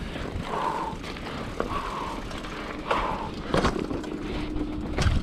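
Mountain bike riding down a dirt trail: steady wind and tyre noise on a bike-mounted or body-worn microphone, with a few sharp knocks as it goes over bumps.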